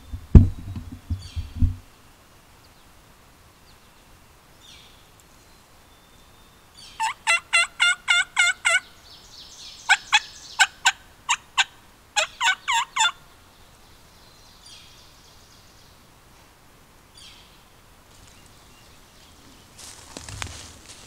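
A few heavy low thumps in the first two seconds. Then, about seven seconds in, turkey yelping in three runs of sharp, evenly spaced notes, roughly five or six a second, over about six seconds.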